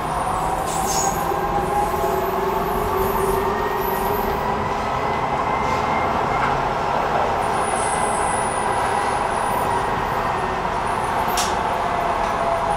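Docklands Light Railway train running, heard from inside the car: a steady rumble of wheels on the track with a faint electric motor whine that slowly drifts in pitch.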